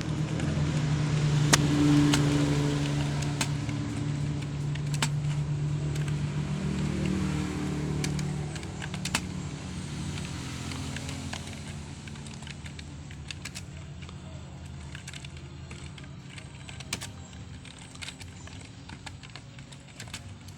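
Scattered, irregular sharp clicks of computer keyboard keys being typed on. A low engine hum from a passing motor vehicle swells in the first couple of seconds and fades away by about eight seconds in.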